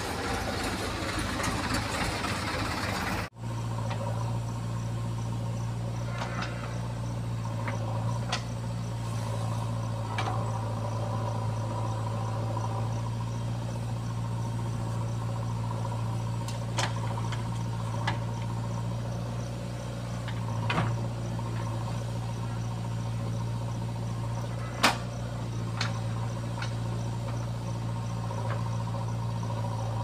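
Diesel engine of a JCB 3DX backhoe loader running while it digs and loads sand. For the first three seconds it is loud from inside the cab, then after an abrupt cut it becomes a steady low drone heard from farther off, with a few sharp metallic knocks. Crickets chirp faintly over it.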